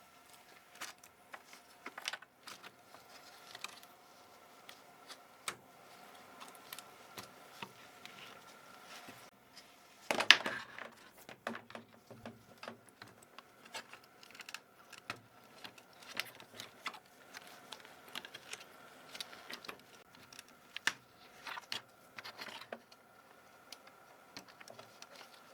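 Scattered small plastic clicks and taps from handling a computer keyboard and its keycaps, with one louder clatter about ten seconds in.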